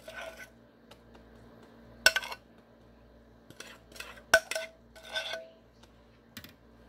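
Metal spoon scraping and knocking against the inside of a glass mixing bowl as thick filling is scraped out: a string of sharp clinks, some with a brief ring, between short scrapes.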